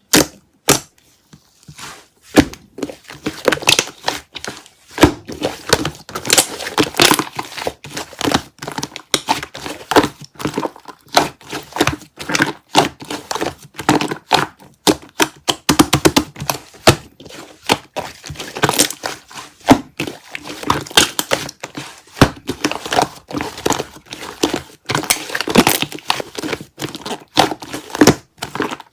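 Slime being squished and stretched by hand, giving a dense run of crackling, popping clicks and squelches from trapped air.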